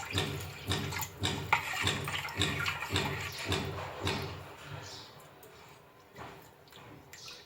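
Water being poured into a batch of lemon juice, splashing in regular pulses for about four seconds, then trailing off quietly.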